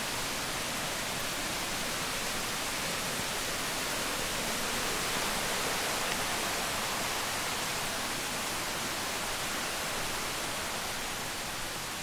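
Steady, even rushing noise of running water, without breaks or distinct events.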